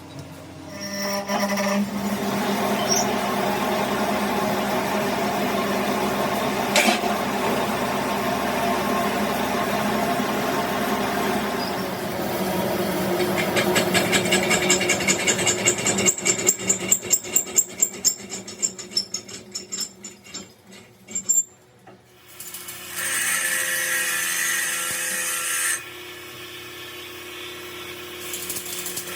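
Power tool running against metal: steady for about ten seconds, then in a quick series of short pulses, then a brief brighter-sounding run near the end.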